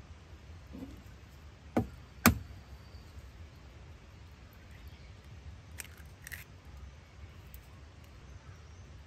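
An egg being cracked: two sharp taps of the shell about half a second apart, then fainter clicks a few seconds later as the shell is split open over the bowl.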